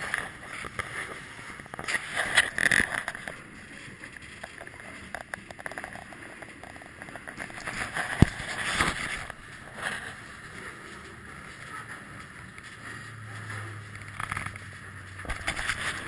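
Moving freight train heard from the end platform of a covered hopper car: a steady rumble and rattle of the rolling car with irregular metallic clanks and knocks, loudest in clusters about two seconds in and around eight seconds in, where one sharp knock stands out.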